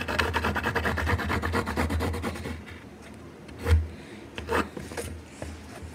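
Hands working cloth spread on a table: quick rubbing, scratching strokes for about two and a half seconds, then a few knocks on the tabletop, the loudest just before the middle of the clip.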